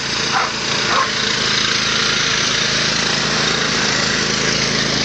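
Riding lawn tractor engines, a Craftsman DYT 4000 and a Yamaha, running steadily. A dog barks twice in the first second.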